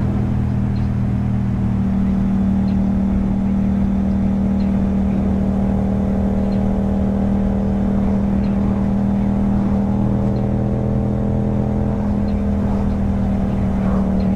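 Yamaha MT-07's parallel-twin engine through an Akrapovic exhaust, heard from on the bike while riding at a steady cruise: a constant engine note that shifts slightly in pitch near the end.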